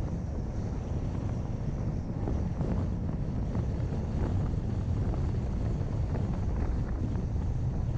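Car driving, with a steady low rumble of road and wind noise buffeting the camera microphone.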